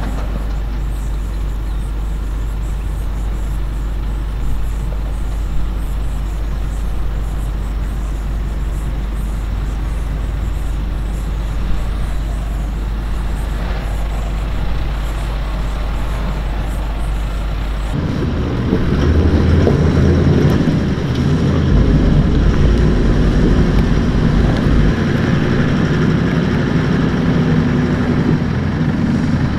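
Four-wheel drive's engine running at low speed as it crawls down a rocky track, distant and steady at first, then suddenly louder and closer about two-thirds of the way through.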